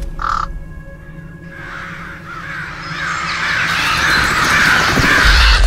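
A raven caws once, briefly, then a rushing, hissing wash of sound swells steadily louder over a faint held music tone.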